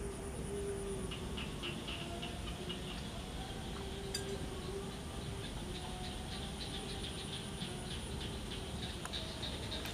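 Outdoor background ambience: a steady hiss with a faint, thin high whine, a faint wavering hum lower down, and scattered light ticks and rustles.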